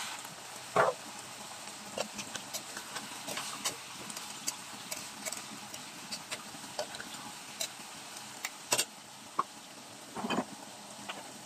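Chicken pieces crackling and popping in a pot on the stove, with irregular small pops throughout. A metal spatula scrapes against the pot about a second in and again near the end.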